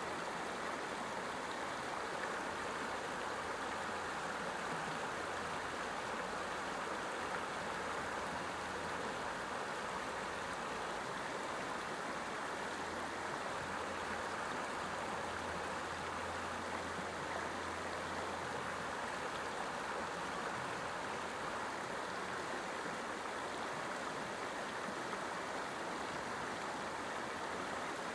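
Creek water rushing steadily over shallow rapids, an even, unbroken rush.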